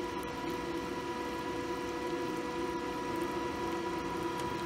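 DC inverter welder running as a battery charger: a steady electrical hum with a higher whine over cooling-fan noise. Its current is set high enough to make the battery's cells gas and bubble.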